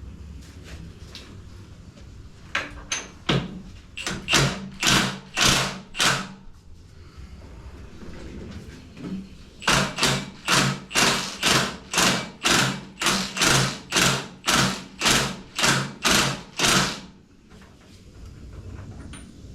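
A hand ratchet worked back and forth on a motorcycle's front fork fasteners, about two strokes a second. There is a short run of a few strokes, then a longer run of over a dozen.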